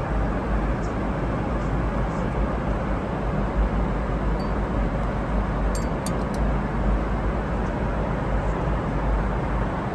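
Steady cabin noise of a Boeing 777-300ER airliner in cruise: an even rush of air and engine noise, heaviest in the low end. A few faint light clicks come around the middle.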